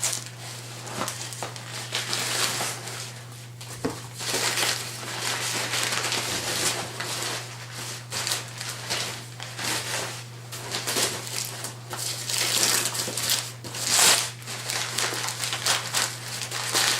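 Packing paper crumpling and packing peanuts rustling as they are pulled out of a shipping box by hand, in irregular bursts.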